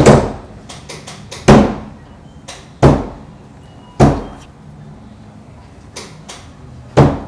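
Hands and fists banging against a stairwell wall: five loud thuds at uneven intervals with fainter taps between, each echoing briefly in the narrow stairwell.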